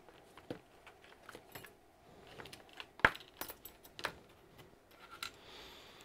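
Small hand tools being handled on a workbench: scattered light clicks and metallic clinks, the sharpest about three seconds in and another about a second later.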